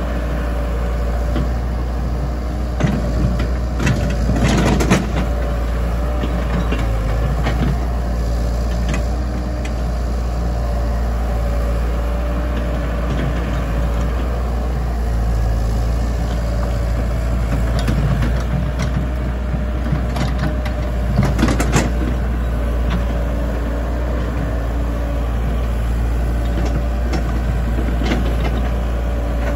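Komatsu PC78US excavator's diesel engine running steadily under load, with a constant whine over the drone. Clanks and knocks come in short clusters a few seconds in and again about two-thirds of the way through as the machine works.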